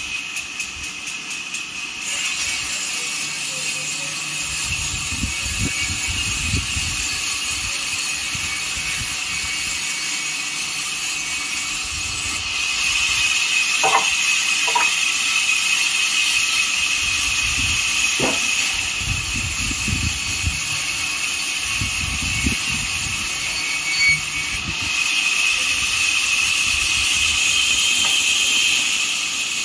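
Steady machine hiss with a high whine, running without a break. Over it come a few sharp knocks and low thuds as workers lever and roll heavy logs with an iron crowbar and a wooden pole.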